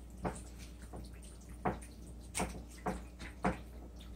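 Raw chicken quarters being turned by hand in a dish of marinade: short, irregular wet squelches and slaps, about two a second.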